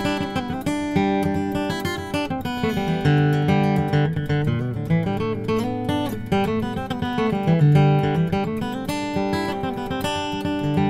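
Santa Cruz D/PW pre-war style dreadnought acoustic guitar with rosewood back and sides and an Adirondack spruce top, played in a steady run of chords and picked notes that ring on over one another.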